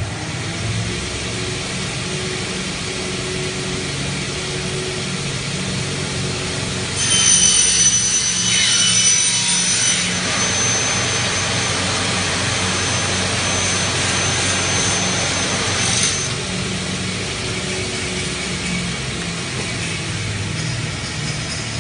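Double-head mitre saw for aluminium profiles running with a steady motor hum. About a third of the way in, its blades cut through the aluminium profile: a loud, high-pitched scream for a few seconds that narrows to a thin whine and stops suddenly about two-thirds of the way through.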